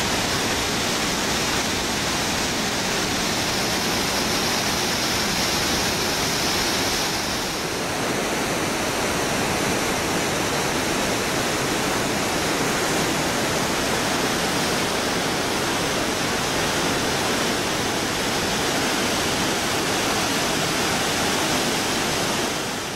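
Rushing torrent of the Bhagirathi, the Ganga's headwater, pouring over boulders and a rock ledge in a steady, loud, unbroken rush of water. The sound dips briefly about a third of the way in.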